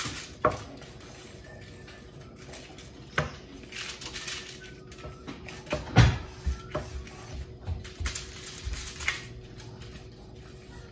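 Kitchen knife scoring whole pompano on a foil-lined tray: scattered light taps and scrapes of the blade against the fish and foil, with one louder knock about six seconds in.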